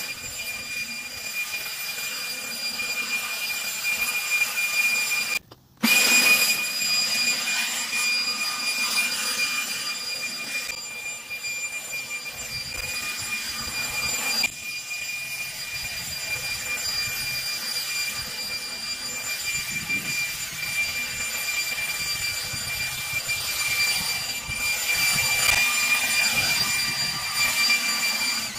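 Ryobi battery-powered leaf blower running steadily, a high electric-motor whine over the rush of air, blowing grass clippings off the pavement. The sound drops out briefly about five seconds in.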